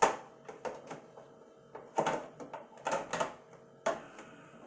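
Parts of a coffee maker being handled, giving several sharp clicks and knocks. The loudest comes right at the start, with others around two and three seconds in.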